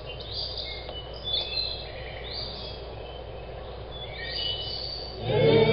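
Birds chirping, short high whistles and glides, over a steady low hum. About five seconds in, a loud held voice comes in, singing.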